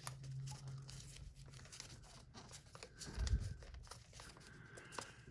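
Faint scattered clicks and handling noise of hands and a tool working a cover off a Singer 201K sewing machine, with one low thump about three seconds in.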